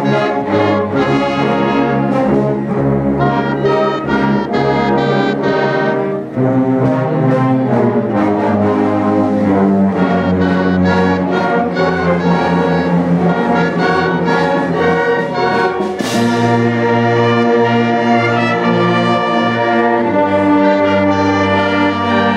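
Youth symphony orchestra playing a slow orchestral film-score piece, brass prominent, heard from within the cello section so the low strings sound close and strong. A sudden loud accent about three-quarters of the way through.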